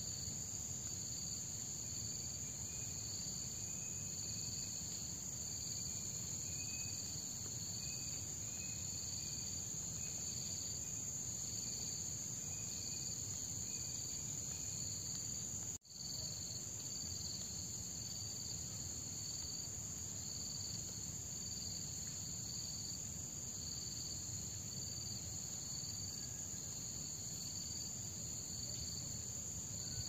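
Crickets chirping: a steady high-pitched trill with a rhythmic pulsing about once a second underneath. The sound drops out for an instant about halfway through.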